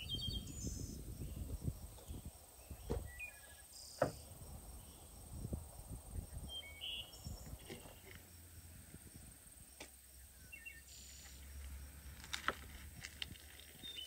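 Knife carving a spit-roasted lamb on a wooden board: the crisp crust and meat crackle and tear, with a few sharp knocks as the blade or bones hit the board. Small birds chirp now and then.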